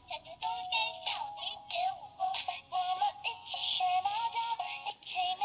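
Toy car transporter's built-in sound chip playing one of its electronic children's tunes through its small speaker: a simple, tinny stepping melody with no bass.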